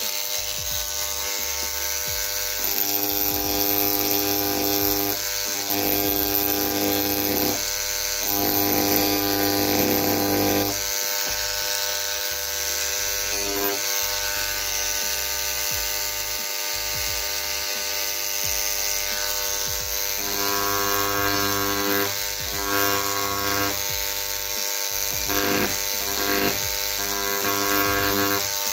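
Parkside electric engraving pen buzzing steadily as its vibrating needle etches glass, the tone shifting several times as the tip is moved over the surface.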